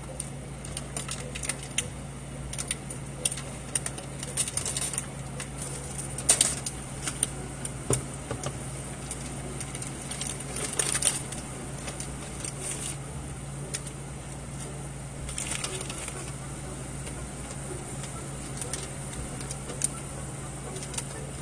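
Plastic instant-ramen packets and a seasoning sachet crinkling and rustling as they are cut and torn open and handled, with scattered small clicks and a few longer rustling bursts. A steady low hum runs underneath.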